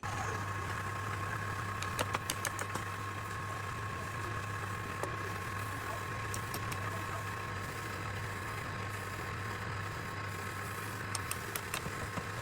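Wood lathe motor running steadily with a constant hum, and clusters of sharp ticks about two seconds in and again near the end.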